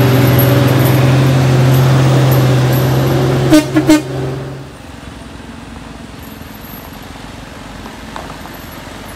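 A truck's engine runs loud and close with a steady low drone. About three and a half seconds in, its horn gives three short toots. About a second later the engine sound drops away abruptly, leaving a low, even background.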